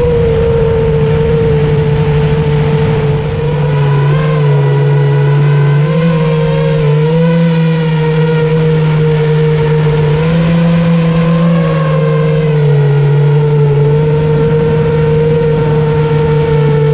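FPV quadcopter's electric motors whining steadily, the pitch stepping up and down with throttle changes as it swoops along. Low wind rush mixes in during the first few seconds and again near the end.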